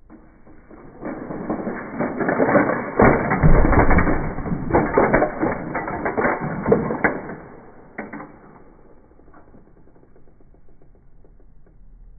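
Slowed-down crash of toy vehicles: a die-cast minivan smashing into a Lego bus, with a long, deep clatter of plastic bricks cracking apart and scattering on a hard tiled floor. The clatter builds about a second in, several sharp cracks stand out in the middle, and it dies away after about eight seconds.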